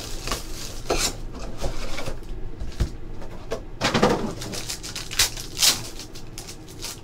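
Cardboard hobby box opened, then a foil trading-card pack torn open, in a run of crinkles and rustles with the loudest crackles about four seconds in and again near five and a half seconds.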